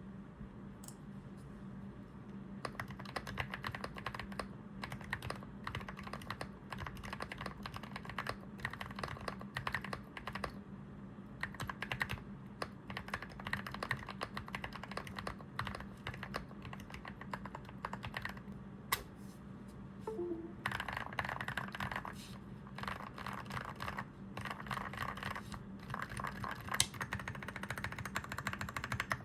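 Fast, continuous typing on an Aula F75 mechanical keyboard fitted with Durock Sea Glass linear switches, a dense run of key clacks. The typing starts a couple of seconds in, pauses briefly about two-thirds of the way through, then picks up again, denser.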